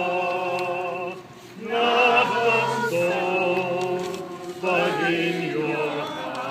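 A group of people singing a hymn together without accompaniment, in long, slow held notes, with a short breath pause about a second in.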